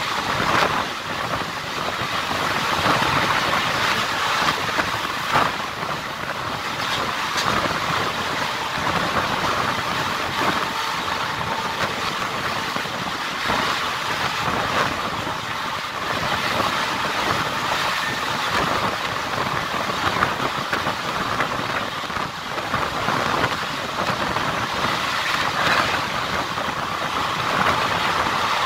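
Passenger train running along the track, heard from a coach window: a steady rushing noise of wheels on rails, with an occasional faint click.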